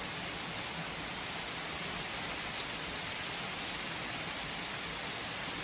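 Steady rain falling, an even hiss with faint individual drops pattering on a surface.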